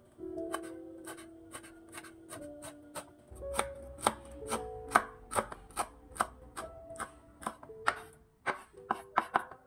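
Chef's knife slicing small red cayenne chillies on a wooden cutting board: a steady run of sharp chops, about three a second, coming quicker near the end.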